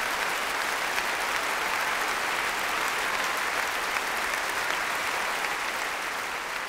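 Large crowd applauding, a steady continuous wash of clapping that begins to die down near the end.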